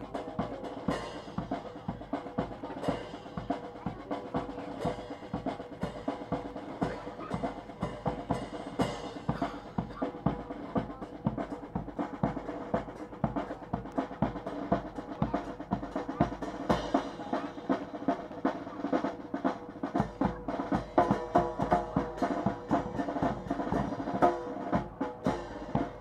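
Military drum section playing a rapid marching cadence on snare drums and bass drum, with snare rolls, accompanying a signal-bugle drill.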